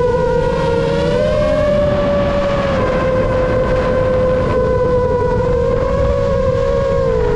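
Steady whine of a 7-inch FPV quadcopter's motors and three-blade props (iFlight Chimera7 Pro, XING2 2809 motors) in fast forward flight, with a rough rumble underneath. The pitch lifts slightly after about a second and sags a little near the end as the throttle changes.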